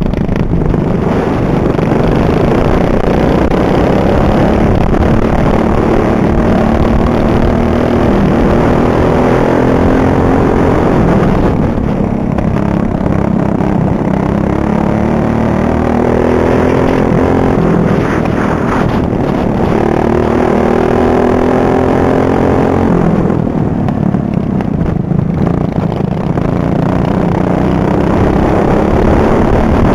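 Racing ride-on lawnmower engine at high revs, heard onboard. The pitch drops and climbs again several times as the throttle is eased and reopened through the turns.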